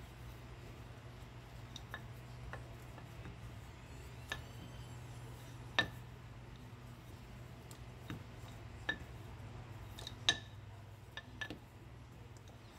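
Scattered sharp clicks of long fingernails tapping a hard, smooth countertop as hands press and stretch a thin sheet of dough, about a dozen over the stretch, at uneven intervals. A steady low hum runs underneath.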